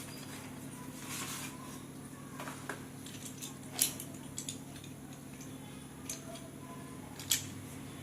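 Slate pencils and their packaging being handled: scattered sharp clicks and light taps with a soft rustle about a second in, over a steady low hum.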